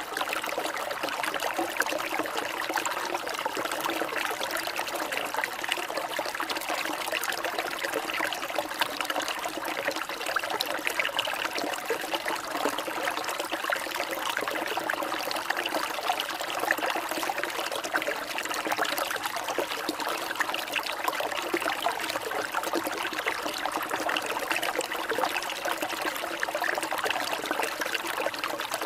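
Steady trickling water, like a small stream, running without a break.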